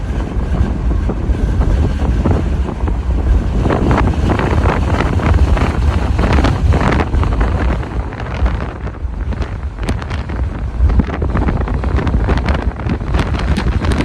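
Strong wind buffeting the microphone in gusts, a heavy low rumble that rises and falls, with ocean surf beneath.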